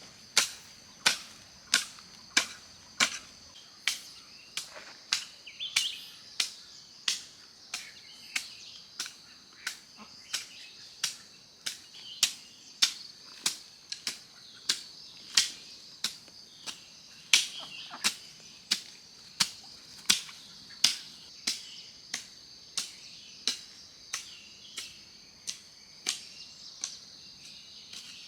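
A steady series of sharp knocks or strikes, about three every two seconds, over a constant high-pitched buzz.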